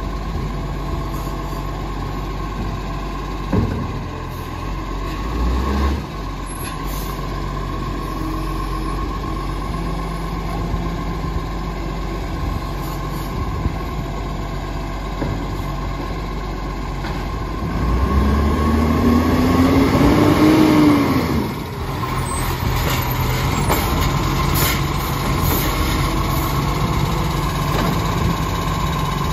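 Diesel engine of an Iveco side-loader garbage truck idling, with a couple of short thumps in the first few seconds. About two-thirds of the way through the engine revs as the truck pulls forward, its pitch rising, then drops back suddenly to idle.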